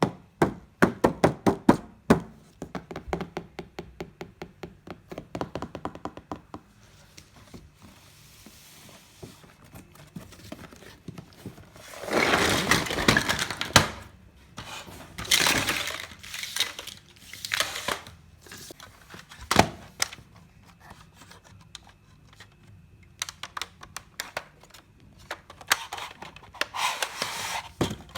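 Plastic pieces of a toy doll kitchen set being handled during unboxing. A fast run of clicks and taps comes over the first few seconds, then scattered knocks and a few longer rustling bursts of packaging, the longest near the middle.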